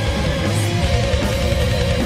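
Live metal band playing: distorted electric guitar, bass guitar and drums, with a long held note wavering in pitch over them.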